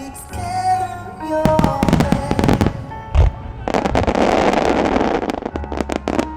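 Aerial fireworks bursting over music: a run of sharp bangs, one heavy boom about three seconds in, then a dense stretch of crackling.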